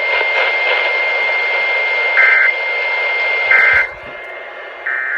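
Three short EAS end-of-message data bursts, the warbling two-tone chirps that close an alert, about 1.3 s apart. They sound over radio static with a steady high whistle, and the static drops away a little before the last burst.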